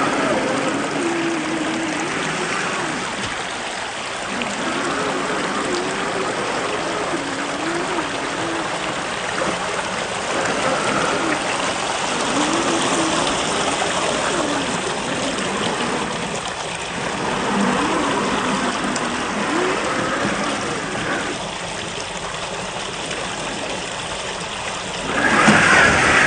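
Water running in a stream, with the whine of a 1/10-scale RC crawler's electric motor rising and falling in pitch as it is throttled. The sound gets louder just before the end.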